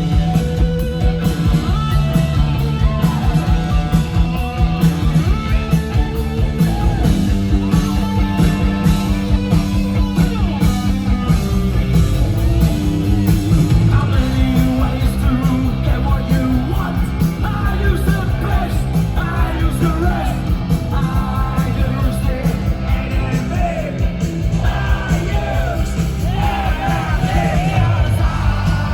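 Punk rock band playing live, with drums, amplified instruments and a singer's vocals.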